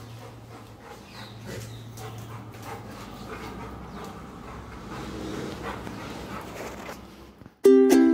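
A wet Labrador making faint dog noises at close range. About seven and a half seconds in, loud ukulele-like plucked-string music cuts in.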